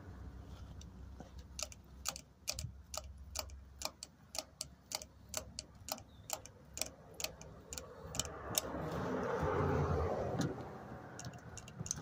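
Thumb-lever pump oil can being worked, its trigger clicking about three times a second as it pumps rust-proofing oil through its spout into a hole in a van's underbody panel. The clicking stops for about two seconds of rustling, then resumes a few times near the end.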